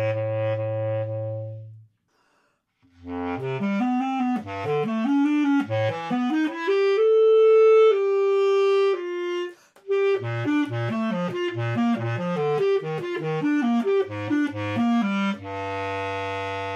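Solo basset horn playing: a held low note, a short break about two seconds in, then quick runs that climb to a long, loud high note, more quick up-and-down runs, and a low held note near the end.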